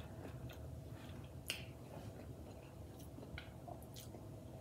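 Quiet drinking from a ceramic mug: a few soft sips and small clicks, the sharpest about a second and a half in.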